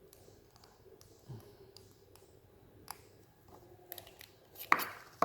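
Faint clicks and light taps of small plastic parts being handled as the battery is slid out of a remote control's opened battery compartment, with a sharper click just before the end.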